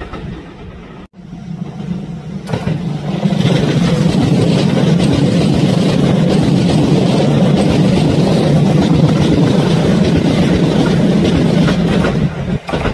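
Kintetsu electric train passing at speed, a steady loud rush of wheels and running gear that builds over the first few seconds. It cuts off abruptly just before the end.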